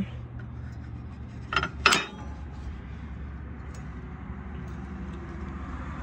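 Two quick metallic clinks about two seconds in, as a steel spring pin and its coil springs are handled against the plow hitch's latch, over a low steady background noise.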